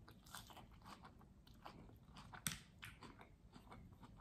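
Faint close-up chewing of crunchy food: a string of small crisp crunches, with one louder crunch about two and a half seconds in.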